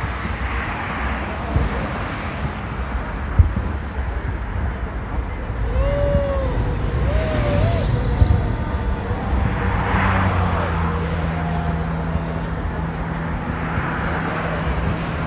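Outdoor traffic rumble with cars passing, a few short sharp knocks, and brief voices near the middle.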